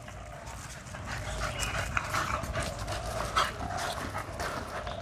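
American Bully dog breathing noisily in short, irregular grunts and snuffles that sound like a pig.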